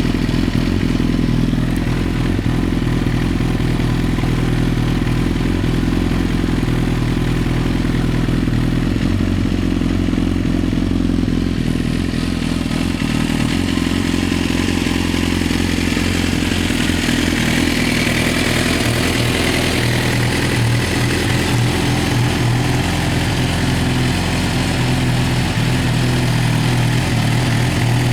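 Suzuki GSX-R1000 K9 inline-four idling steadily through a Yoshimura R77 4-into-1 exhaust, a loud, even burble with no revs.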